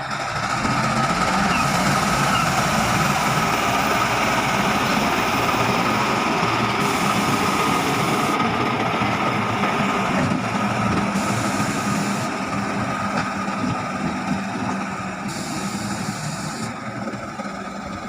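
Heavy construction machinery running steadily, with an engine drone and a constant whine.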